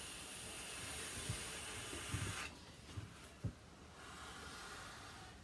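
Long draw on a vape device: a steady hiss of air drawn through the mod for about two and a half seconds. A softer hiss of breath blowing out the vapour follows about four seconds in.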